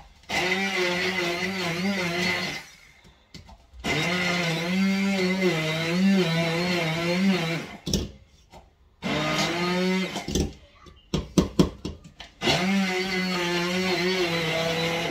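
Electric kitchen chopper motor running in four bursts of a few seconds each, its pitch wavering as it chops onion for a meat filling. Between the last two bursts comes a quick run of sharp clicks.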